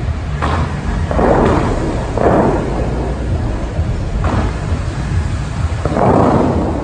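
Dubai Fountain's water jets firing during a show: about five sudden blasts of water shooting up, each followed by the hiss of falling spray, over a steady low rumble.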